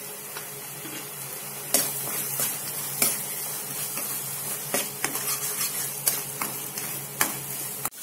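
Spatula stirring and scraping a thick onion-tomato masala paste in a frying pan, against a steady sizzle from the frying paste. The scrapes and knocks against the pan start a little under two seconds in and come irregularly, every second or so.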